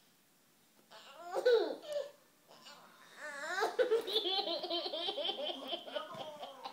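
Toddler laughing in repeated bursts. The laughter starts about a second in and turns into a long, pulsing belly laugh in the second half.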